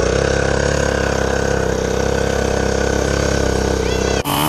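Dirt bike engine idling steadily at an even pitch; about four seconds in the sound breaks off abruptly into a different engine sound.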